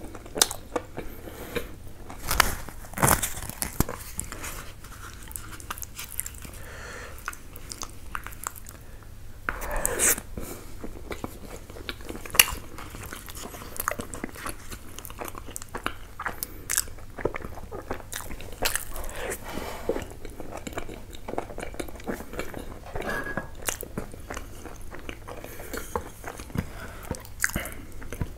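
Close-miked eating sounds: chewing and biting mouthfuls of mutton biryani and curry, with many wet mouth clicks and smacks and a few louder bites.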